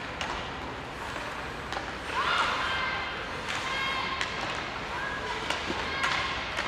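Ice hockey game sounds: a few sharp clacks of sticks and puck, with players and spectators shouting over the hum of the rink.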